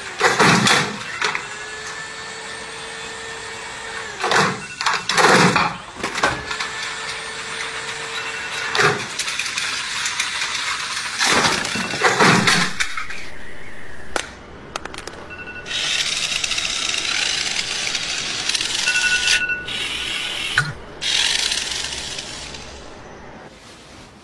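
A homemade chain-reaction machine running through its steps: a steady hum with several loud clattering hits and swishes from its swinging lever and moving parts. Then, over the second half, a hissing noise that starts and stops several times before fading out.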